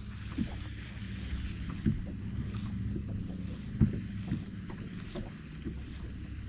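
Hobie Pro Angler 14 kayak on the water: a steady low hum with a few irregular knocks and clunks on the hull, the loudest a little before the middle.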